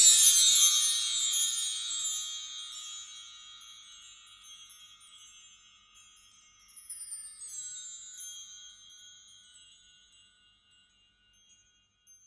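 Shimmering chime sting for an animated logo: a cascade of high bell-like tinkles that rings on and slowly fades. A second, lighter flurry of tinkles comes in about two-thirds of the way through, and the sound dies away shortly before the end.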